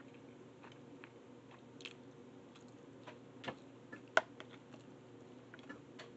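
Someone eating ramen noodles: a metal fork clicks and scrapes against a plastic container, with soft chewing. The sharpest click comes about four seconds in. A low steady hum runs underneath.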